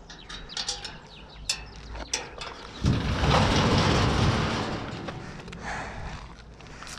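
Scattered clicking and rattling from the bicycle's mechanism. About three seconds in, a loud rushing noise starts suddenly and fades away over a couple of seconds.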